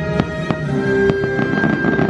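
Fireworks bursting overhead, with a few sharp bangs in the first second and then a dense crackling, over the show's music with its held notes.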